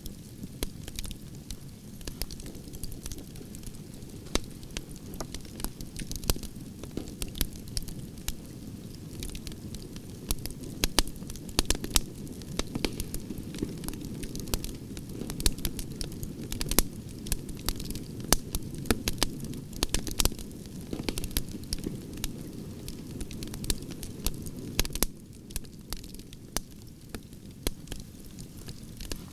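Wood bonfire burning: frequent sharp crackles and pops over the low rush of the flames, which eases a little about 25 seconds in.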